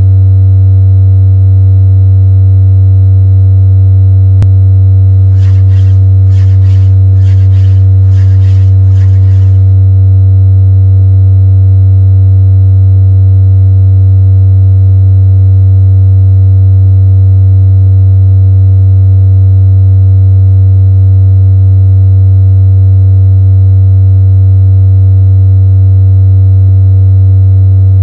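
A loud, steady low electronic drone tone, with a short run of about ten rhythmic hissing pulses, roughly two a second, about five seconds in.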